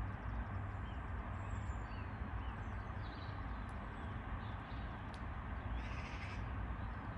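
Garden ambience: a steady low rumble, with faint, short, falling bird chirps in the first few seconds and a brief harsh, noisy call about six seconds in.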